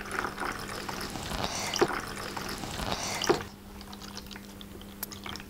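Water poured from a plastic bottle splashing into a shallow plastic toy basin, with a couple of sharper splashes, stopping about three and a half seconds in.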